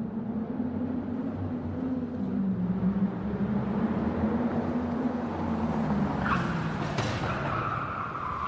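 Car engine running, its pitch rising and falling as it revs. About six seconds in, a tyre squeal sets in and holds as a steady high tone, with a single sharp crack about a second later.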